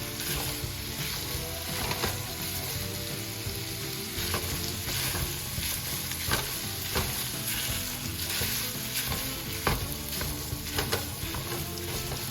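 Italian sausage sizzling as it fries in a pan, with the scrape and clack of a utensil breaking up and stirring the meat now and then.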